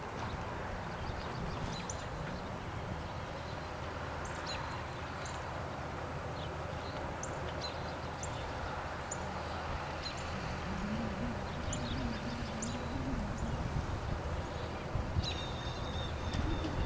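Outdoor storm ambience: a steady background hiss with small birds chirping briefly here and there throughout.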